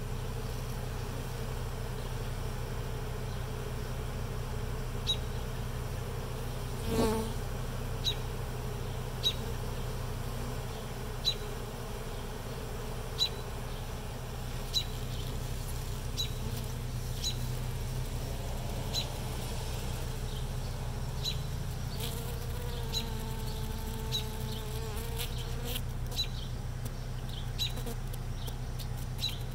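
Swarm of honeybees buzzing steadily around a swarm-catching box, with a louder buzz passing close about seven seconds in and again around two-thirds of the way through, the second one sliding in pitch. A short high chirp repeats every second or so over the hum.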